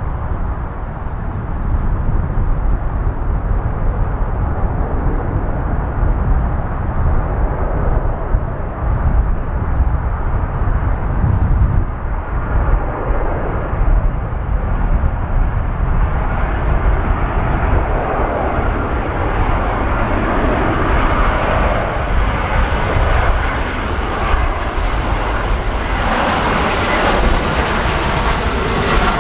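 Airbus A320 jet engines growing louder as the airliner comes in to land, over a heavy low rumble of strong wind on the microphone.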